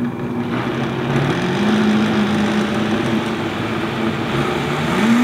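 Vitamix blender running, pureeing hot butternut squash soup: a loud motor whir with the churning of the liquid. The motor's pitch sags about a second in, climbs back, then dips and rises again near the end.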